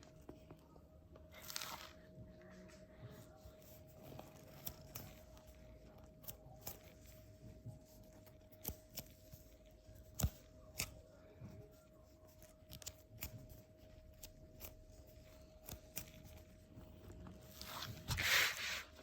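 Foam squishy toys being handled: scattered light taps and clicks, with short rustling scrapes and a longer, louder rustle near the end, over a faint steady hum.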